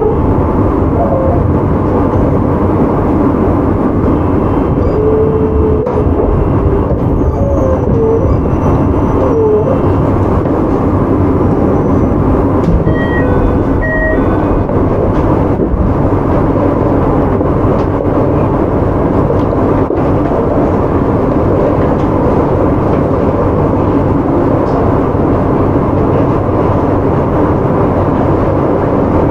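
Running noise of a JR Hokkaido 731 series electric multiple unit with a Hitachi IGBT VVVF inverter, heard from inside the car: a steady rumble of wheels on rail and motor noise.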